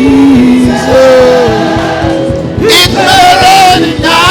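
Live gospel worship music: a band playing with voices singing held, sliding notes.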